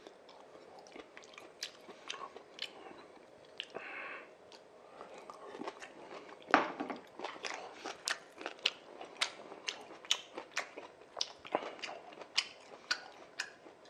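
A person chewing a mouthful of jjapagetti (black-bean instant noodles), with wet mouth clicks and smacks. About halfway through these settle into a steady run of about two a second.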